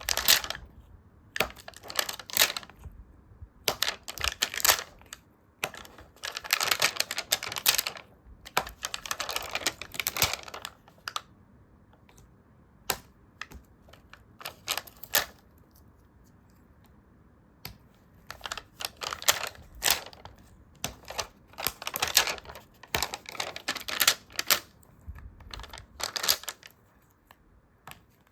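Stickers and paper handled by hand: irregular bursts of crisp, clicky crinkling and rustling, with a quieter pause of a few seconds midway.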